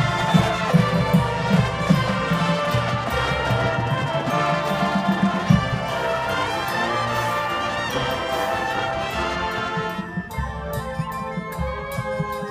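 A band playing a piece in rehearsal, with a full band sound of sustained notes over a regular drum beat. About ten seconds in, the sound thins to a lighter passage of fewer notes and crisp, evenly spaced beats.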